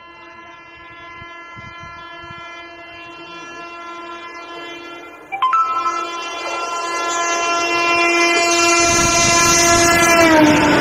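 WAG-7 electric locomotive horn sounding one long, unbroken blast as the locomotive approaches. About halfway through it jumps much louder as a higher second note joins. Near the end the pitch drops as the locomotive passes close by, and the rumble of the freight train's wheels rises underneath.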